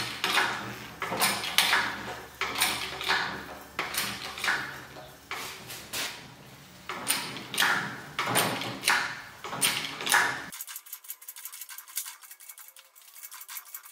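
Hydraulic bottle jack of a 12-ton pipe bender being hand-pumped under load as it bends inch-and-a-half steel gas pipe: repeated metallic clanks from the pump handle stroke, about two a second. About ten seconds in, the sound cuts abruptly to a thin, high, fast rattle.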